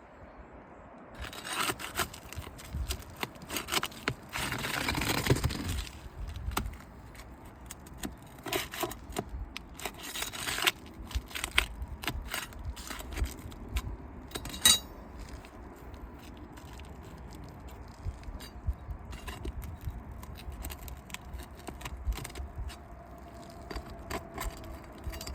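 A tool scraping and clicking against asphalt roof shingles as the nails holding a shingle are worked loose. A longer scrape comes about five seconds in, and a sharp metallic clink comes about two-thirds of the way through.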